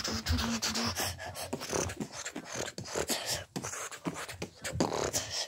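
Handling noise from a handheld phone moved about close to the microphone: irregular rustling, rubbing and clicks.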